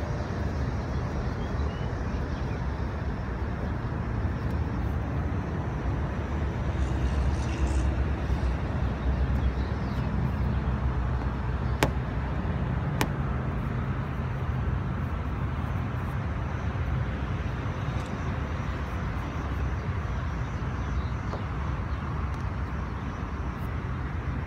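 Steady low outdoor rumble that swells a little around eight seconds in, with two sharp clicks about a second apart near the middle.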